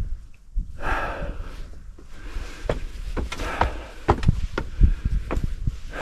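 A hiker's footsteps on a climbing trail, irregular steps about once or twice a second, with heavy breathing swelling every couple of seconds.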